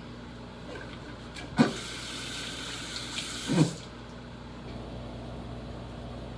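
Kitchen tap turned on with a knock and run for about two seconds, a steady hiss of water, then shut off.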